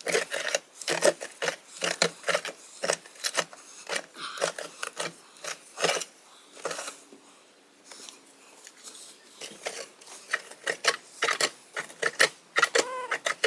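Hand auger post hole digger turning in gravel at the bottom of a deep hole: its metal blades scrape and grind against stones in irregular clicks and rasps, with a quieter pause a little past halfway. The stones are the sign of a gravel layer just above rock, where the auger takes up little material.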